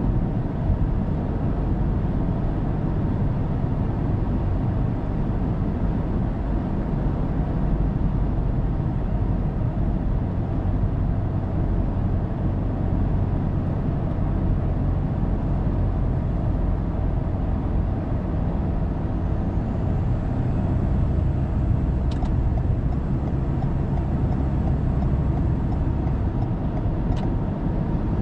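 Steady road and engine noise of a car cruising on an expressway, as picked up by a dashcam inside the car. A faint high whine comes in during the second half, and there are two light ticks near the end.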